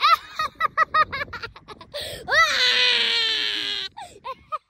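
A boy laughing in quick, even ha-ha-ha syllables, then letting out one long, shrill, rasping scream a little over two seconds in that lasts about a second and a half, then laughing again.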